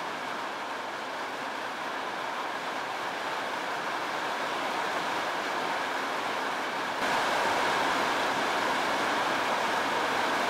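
Torrential rain pouring down in a steady, dense hiss, stepping up louder about seven seconds in.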